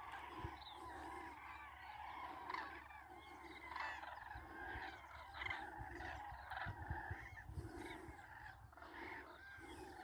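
A flock of common cranes calling, many faint overlapping trumpeting calls at once, with wind rumbling on the microphone.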